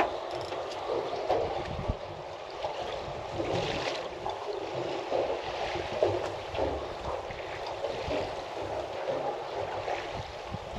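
Wind buffeting the microphone over water sloshing around a boat, an uneven rumbling noise with irregular low thumps.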